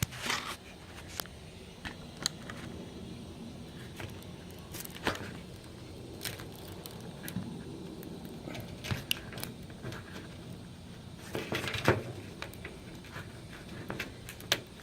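Hands working at the stiff cap of a bottle of paint hardener: scattered clicks, knocks and rattles, with a sharper knock about five seconds in and a louder cluster near the end.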